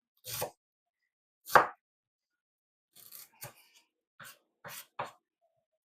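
Knife cutting an onion on a chopping board: separate chops at an uneven pace, the loudest about a second and a half in, then a run of lighter cuts from about three seconds on.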